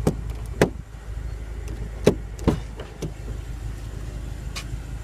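2015 BMW M6 Gran Coupe door being demonstrated closing by its soft-close mechanism: a few sharp latch clicks and knocks over a steady low hum.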